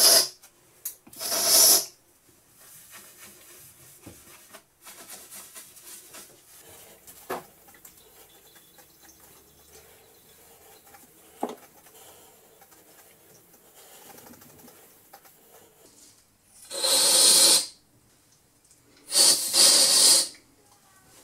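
Aerosol spray can with a straw nozzle giving four short hissing bursts, two near the start and two near the end, flushing drilling sediment out of a bolt hole in a granite slab. In between, a sponge rubbing softly over the wet polished granite.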